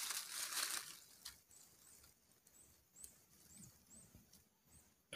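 A brief rustle of handling noise, then faint, very high, short chirps repeated about twice a second for a couple of seconds: a small animal's calls.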